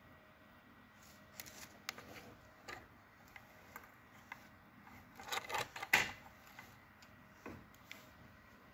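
Scattered small clicks and taps of fingers handling hookup wires and a USB-to-TTL converter on a wooden desk, busiest and loudest about five to six seconds in.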